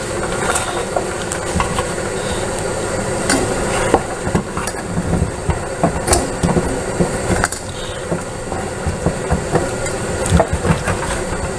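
Caramelised sugar being dissolved in hot apple-and-sage water in a pot: steady sizzling and bubbling, with a spoon scraping and knocking irregularly against the pot as it is stirred.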